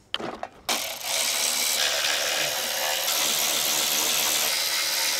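Power drill running steadily for about four and a half seconds, starting and stopping abruptly after a couple of short clicks, as it takes the recoil starter off the pressure washer's engine.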